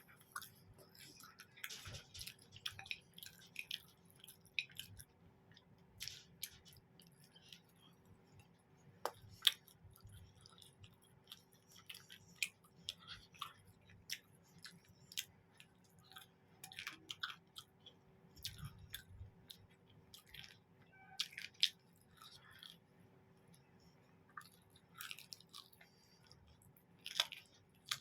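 Close-up mouth sounds of a person eating mutton curry with roti: irregular wet chewing, smacking and clicking, a few every second.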